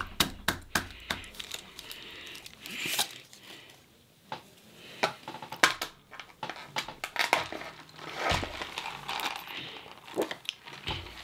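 Crinkling and rustling of fast-food packaging handled up close, with many sharp irregular clicks and taps and a short lull about four seconds in.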